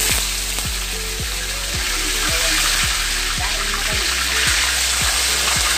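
Dried milkfish sizzling loudly in hot cooking oil in a wok as it is laid in to fry. Background music with a steady beat plays underneath.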